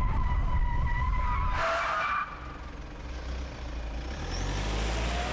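A car braking hard, its tyres squealing with a steady high note over the low rumble of the cabin for about a second and a half, then a short, harsher screech as it stops. After that comes a quieter engine rumble.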